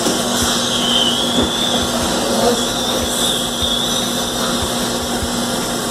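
Dental equipment running during treatment: a steady high whine that wavers slightly in pitch, over a constant hiss.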